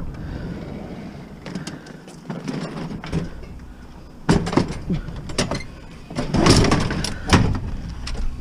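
Heavy self-propelled lawnmower being dragged and heaved into place: knocks, scrapes and clanks of metal, loudest about four seconds in and again near the end.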